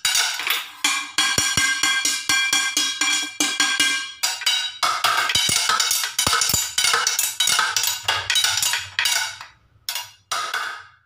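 Kitchen pots and plates beaten by hand in a fast, irregular run of strikes, the metal ringing after some hits. The beating thins out near the end, with two last separate hits.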